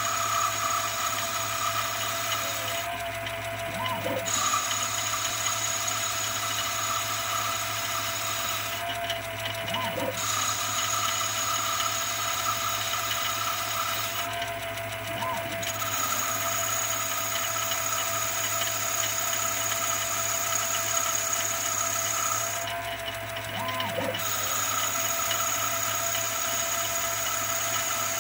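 Mini metal lathe converted to CNC, running its first cuts: the spindle runs with a steady whine while the tool cuts. Four times, about every six seconds, the cutting sound drops out briefly and a short rising-then-falling whine sounds as the axes move between passes.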